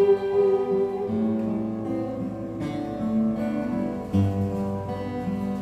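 Acoustic guitar playing the closing chords of a song, with a new chord struck about every one to one and a half seconds and left to ring.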